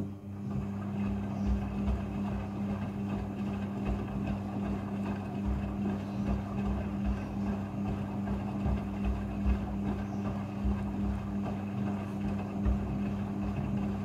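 Midea front-loading washing machine tumbling a wet blanket in its rinse cycle: a steady machine hum under the slosh and splash of a small amount of rinse water, with irregular low thumps as the load drops in the drum.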